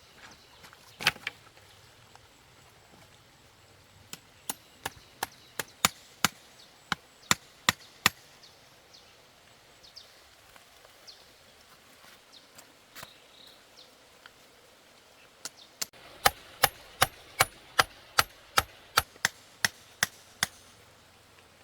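Chopping: sharp, evenly spaced strikes of a blade, about three a second, in two runs, with a single louder strike about a second in.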